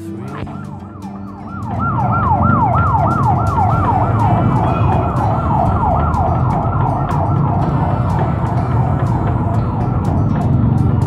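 Siren-like wail made of quick downward pitch sweeps repeating about three times a second, over a heavy low rumble.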